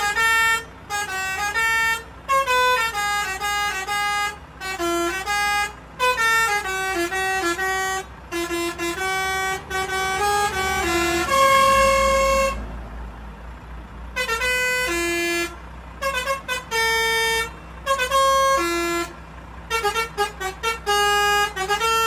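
Telolet horn on a Volvo lorry, a multi-tone air horn, playing a tune in quick short notes of changing pitch, phrase after phrase with brief pauses, and one longer held note about eleven seconds in.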